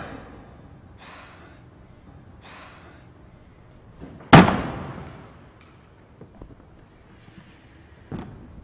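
A single loud slam about four seconds in that dies away over about a second, after two short soft hisses; a lighter knock near the end.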